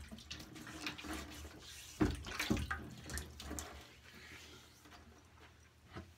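Water running from a bathroom sink tap while hands scoop and splash it onto a face to wet the beard before lathering, with a couple of louder splashes about two seconds in.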